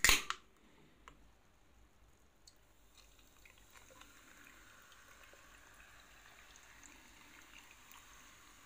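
A can of carbonated cola cracked open by its pull tab with a sharp hiss at the very start, then, from about three seconds in, the cola poured over ice cubes into a glass mug: a steady quiet fizzing pour with many light ticks.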